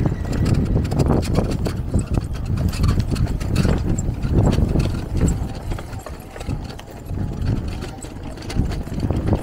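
Bike jolting over a rough dirt track: irregular knocks and rattles over a low wind rumble on the microphone.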